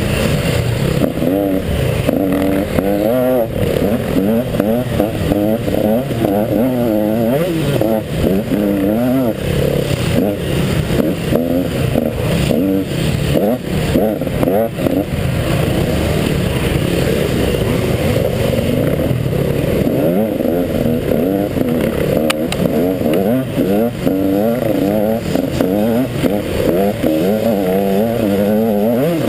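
KTM 150 XC single-cylinder two-stroke dirt bike engine being ridden hard off-road, revving up and down constantly as the throttle opens and closes, heard from the bike's onboard camera.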